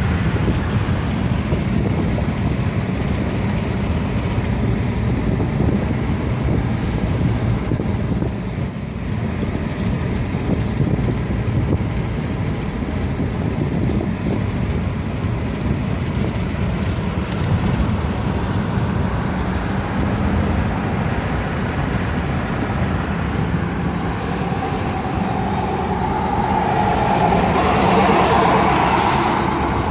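Steady road and wind noise of a car driving: tyre rumble with wind buffeting the microphone. Near the end the noise swells louder for a few seconds.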